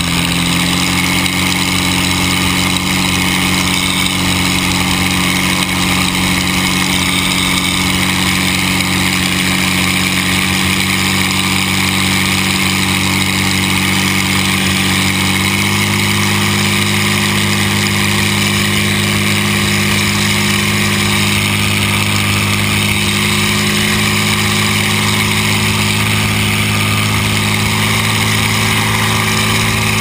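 The U-77 Miss Wahoo unlimited hydroplane's engine runs loud and steady at speed, with the rush of spray and wind over the open cockpit. Its pitch shifts slightly about a second in and again about halfway through.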